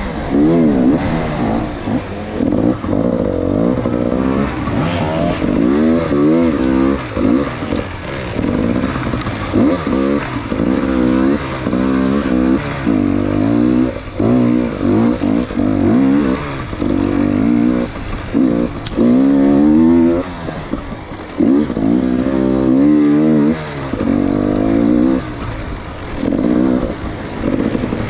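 Enduro dirt bike engine revved up and down over and over under the rider's throttle, its pitch rising in short surges and falling away between them every second or two.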